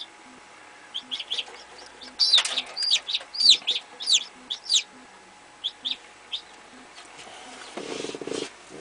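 Chicken chick peeping as it hatches from the egg: a quick run of short high cheeps, each rising then falling, starting about a second in, with a few more a little later.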